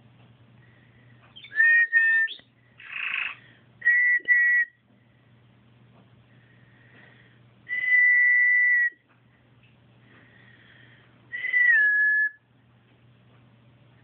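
Domestic canary singing in separate short phrases of whistled and warbled notes, with one buzzier phrase about three seconds in, a long steady whistle about eight seconds in, and a note that slides down in pitch near the end. A faint low hum runs beneath the pauses.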